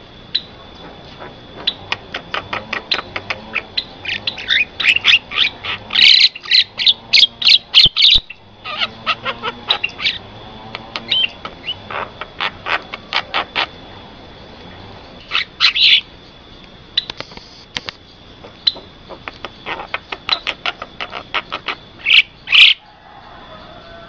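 Javan myna calling: a rapid string of sharp clicking and chattering notes, with louder harsh bursts about six to eight seconds in, near sixteen seconds, and near the end. A faint steady high tone runs underneath.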